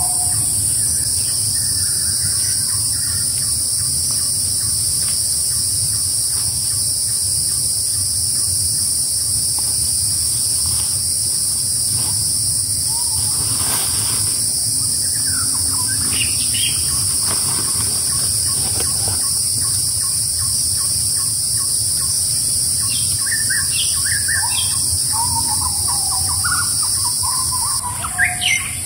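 A steady high-pitched chorus of forest insects drones throughout, with scattered bird chirps and calls over it, more of them in the second half. A few short knocks sound near the end.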